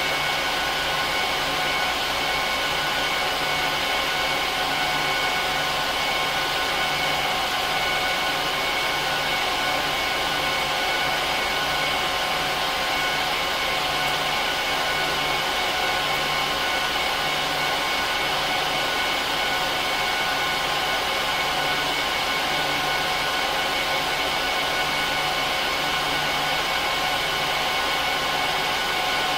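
HP ProLiant DL380p Gen8 server's cooling fans running loudly at a steady speed as the server boots: a constant rush of air with a high whine of several steady tones on top.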